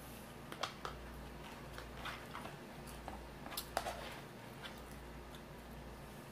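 Faint eating sounds: scattered light clicks and smacks of chewing and a utensil against the bowl, over a steady low hum.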